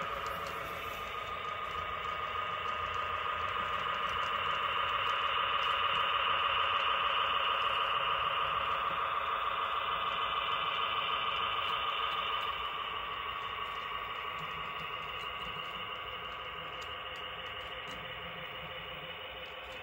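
Model railway locomotive's onboard sound decoder playing a steady engine sound through its small speaker as the train runs into a siding. It grows louder toward the middle and fades toward the end, with faint ticking over it.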